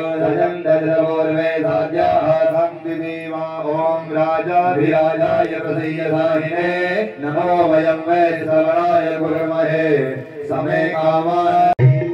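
Hindu devotional chanting during an aarti, sung in a flowing melodic line over a steady low held tone. It breaks off abruptly near the end.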